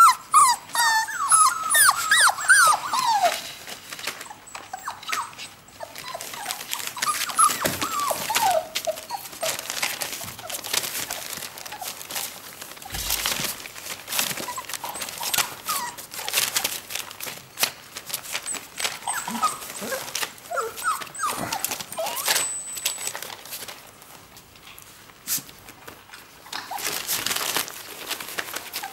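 Four-week-old whippet puppies whining from hunger: several high, falling whines overlap in the first few seconds, then a few scattered whines come over scuffling and rustling as they scramble on newspaper and paw at the plywood sides of the whelping box.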